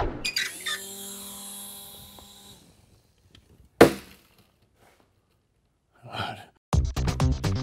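A clatter with a metallic ringing that fades over about two seconds, then one sharp knock and a short breath. Upbeat electronic music with a steady beat starts near the end.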